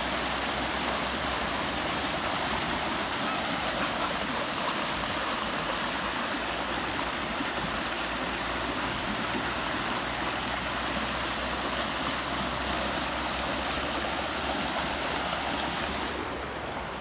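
Storm runoff gushing out of a full concrete culvert pipe and rushing across flooded ground: a steady, even rush of water. It grows quieter near the end.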